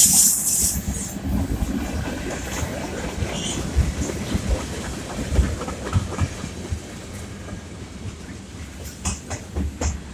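Freight train rolling past, its wheels clacking irregularly over the rail joints with a steady low rumble. A loud rushing noise comes in the first second.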